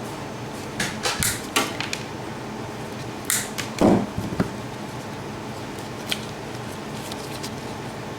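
Scattered clicks and small clatters of tools and switch parts being handled, with a louder clatter about four seconds in, over a steady background hum.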